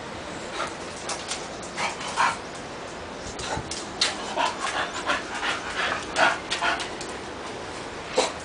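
Two English bulldogs playing, making a quick, irregular run of short dog sounds that is thickest in the middle seconds.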